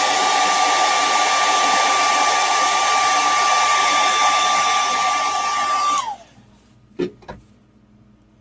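Hand-held hair dryer blowing hot air onto a freshly painted fishing lure to heat-set the paint: a steady rush of air with a high whine. About six seconds in it switches off and the whine drops away as the motor spins down, followed by two quick knocks.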